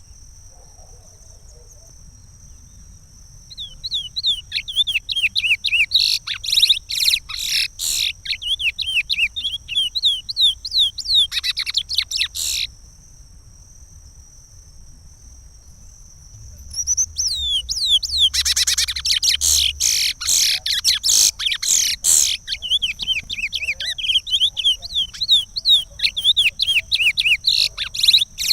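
Curió (chestnut-bellied seed finch) singing the Pará regional song: two long phrases of rapid, sweeping whistled notes, separated by a pause of about four seconds, with a denser, louder stretch in the middle of the second phrase.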